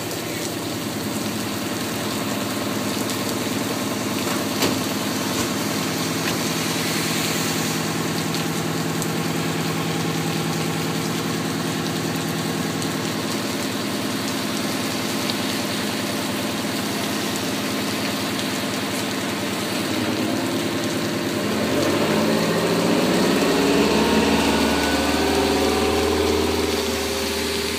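Fire engine's diesel engine idling steadily, then revving up and getting louder from about two thirds of the way in as the truck pulls away.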